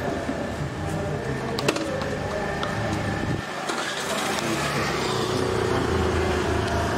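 A motor vehicle's engine running steadily as it moves along a road, with a single sharp knock a little under two seconds in.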